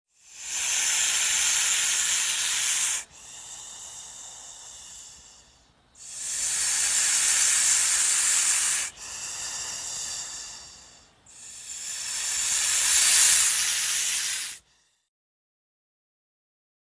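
Hissing in three long, loud strokes, each about three seconds, with a quieter hiss between them. It stops about fifteen seconds in.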